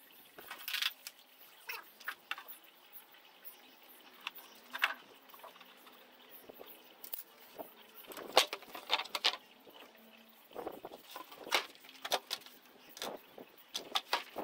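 Scattered clicks, scrapes and light metallic clatters from handling a steel-faced, foam-cored insulated roofing panel on tarmac, busier over the last few seconds as the panel is turned over onto its corrugated face.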